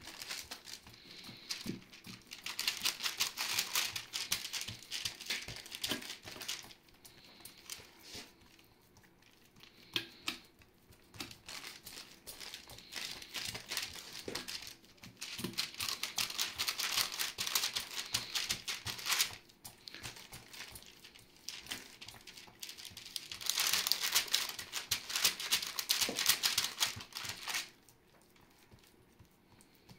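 Hands pressing and stretching soft, oily dough thin across a baking tray: a fine, crinkly crackle that comes in spells of several seconds, with quieter pauses between.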